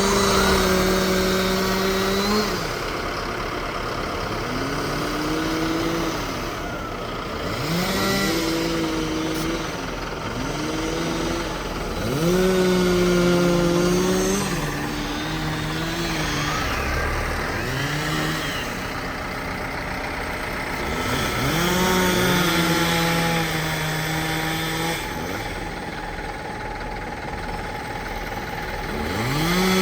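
Two-stroke chainsaw revved up to full throttle again and again, each burst held for one to three seconds before dropping back to idle, as limbs are cut from a tree.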